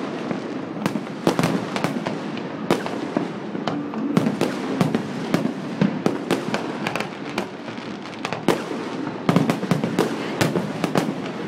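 Fireworks going off overhead: many sharp bangs and cracks in quick, irregular succession, bunching into a dense run of bangs about nine seconds in.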